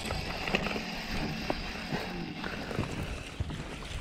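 Light rustling and small clicks of hands handling a fish and tackle close to the microphone, over a low steady rumble.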